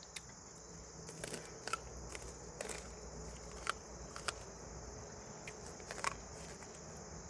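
Steady high-pitched chorus of insects, crickets or similar, with a handful of faint sharp clicks and crackles scattered through it.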